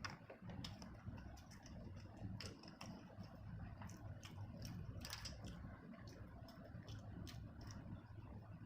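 A person eating with their hands, chewing: faint, irregular wet mouth clicks and smacks, several a second, over a low steady hum.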